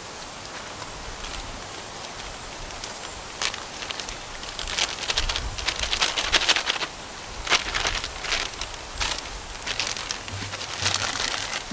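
Clear plastic bag crinkling and rustling as it is handled, in several bursts, loudest a third of the way through.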